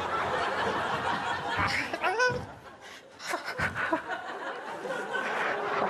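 Studio audience laughing, with a short cry about two seconds in.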